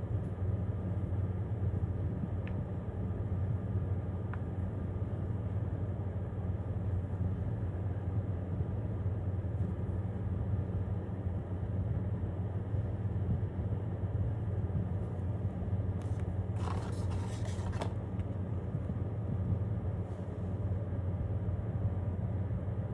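Steady low hum, like a running motor or engine. A short rustling burst comes about seventeen seconds in.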